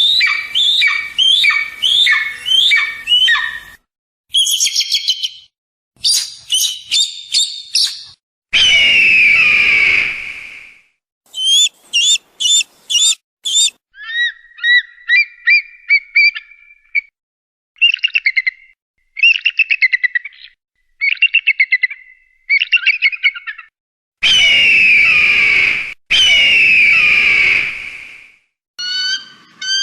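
Kite calls: shrill whistled calls, rapid series of descending notes and harsh drawn-out squeals, in a string of separate segments that start and stop abruptly with short gaps of silence between them.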